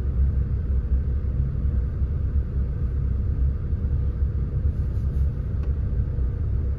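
Saturn car engine running with a steady low rumble. The engine still has a misfire, and its O2 sensor readings are swinging erratically.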